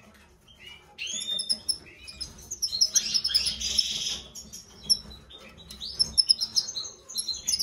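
European goldfinch twittering song: quick high chirps starting about a second in, a dense buzzy stretch in the middle, then rapid chirping again near the end.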